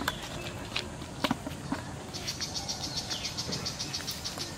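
A few soft knocks, then from about two seconds in an insect's rapid, even, high-pitched chirping, about nine chirps a second, that stops shortly before the end.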